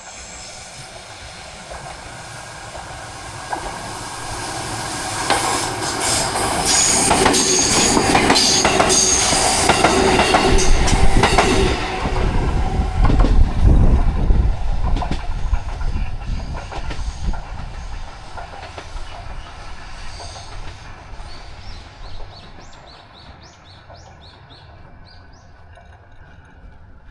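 JR Central 373 series limited express Inaji electric train passing close by at a level crossing. It swells to a loud rumble with clicking over the rail joints and a high wheel squeal at its loudest, then fades away into the distance. Short high chirps are heard near the end.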